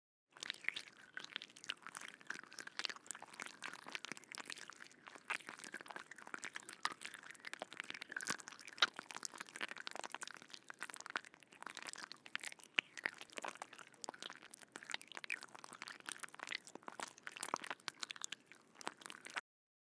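Insect sound effect: a dense, irregular crackle of tiny clicks and crunches over a faint steady high hum, starting abruptly and cutting off just before the end.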